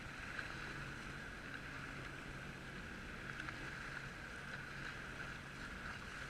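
Jet ski engine running steadily as a low hum, under a haze of water and wind noise.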